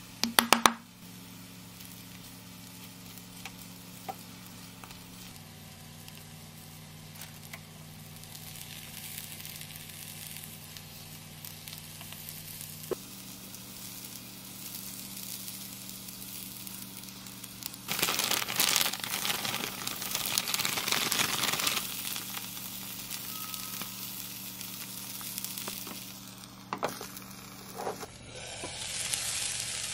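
Cabbage-and-egg pizza base sizzling in a frying pan on the stove. A few quick hits of a ketchup bottle being shaken out come right at the start, and a louder stretch of sizzling noise lasts a few seconds past the middle.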